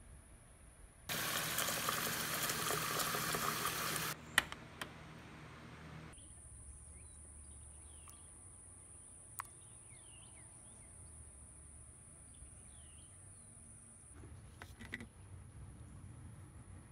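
A steady high-pitched insect trill with faint bird chirps. About a second in, a loud hiss-like noise runs for about three seconds and cuts off suddenly, followed by a few sharp clicks.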